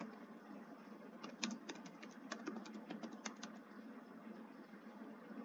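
Computer keyboard typing: small clusters of key clicks through the first three and a half seconds, then a pause with only a faint steady hum.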